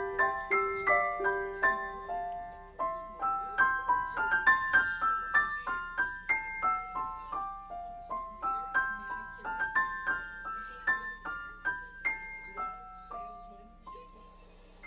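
Background piano music: a gentle melody of single notes that fades out toward the end.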